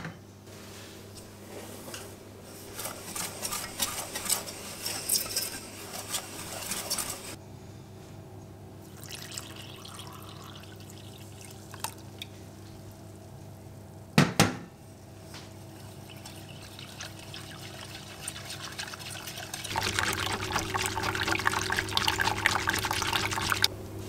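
A wire whisk stirs the milk and flour base for ermine frosting in an enamel saucepan, a light, irregular scraping and swishing, while milk is poured in. A single sharp knock about halfway through is the loudest sound. Brisk whisking of the thickening mixture fills the last few seconds.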